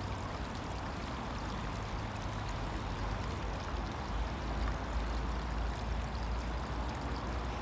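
Meltwater running steadily through a drainage culvert, a continuous rushing trickle.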